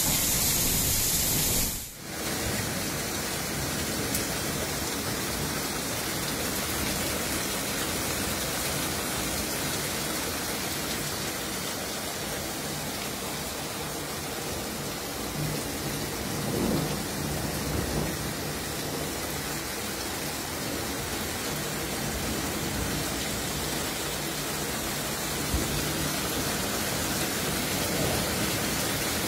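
Heavy rain and hail falling in a storm, a steady hiss of the downpour. It drops out briefly about two seconds in, then carries on softer and duller, with a few low swells in the middle.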